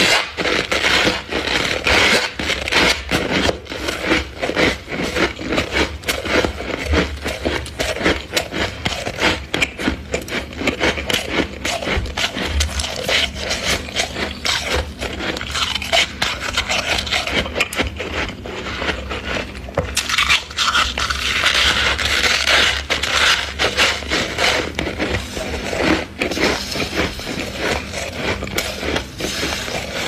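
Soft freezer frost being scraped and crunched: a dense, continuous crackling of loose ice crystals, a little brighter about two-thirds of the way through.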